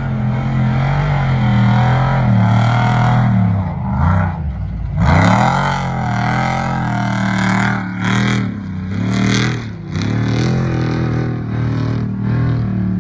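Vehicle engine running, its pitch dipping and then climbing again about five seconds in, with another brief dip near ten seconds.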